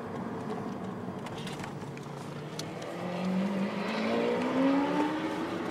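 Lamborghini Aventador Roadster's V12 exhaust: a low steady rumble, then about three seconds in it gets louder and rises steadily in pitch as the car accelerates.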